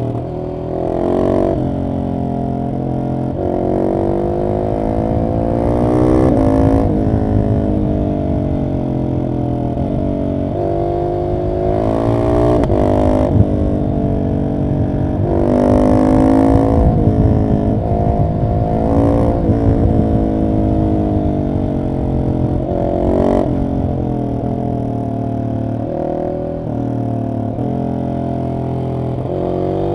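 A Husqvarna 701 SM's single-cylinder engine through a decatted Arrow exhaust with the dB killer in, ridden hard. Its note climbs and drops again and again as the bike accelerates and shifts gear.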